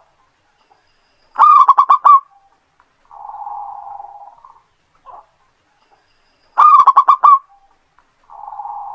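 Zebra dove (perkutut) cooing song: twice, a loud run of about six quick clipped coos, each followed a second later by a softer rolling coo lasting about a second and a half.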